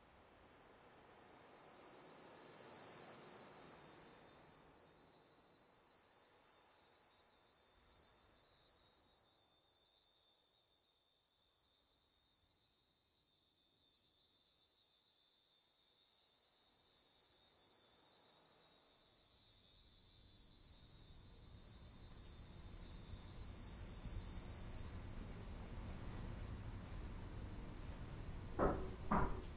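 A single steady high-pitched electronic tone, growing louder and then fading away near the end. As it fades, a low room rumble comes in and there are two sharp knocks.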